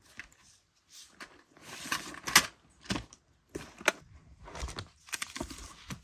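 School supplies being taken out of a fabric tote bag and put down on a cloth-covered table: rustling and crinkling, with a few sharp clicks and knocks as things are set down, the loudest about two and a half and four seconds in.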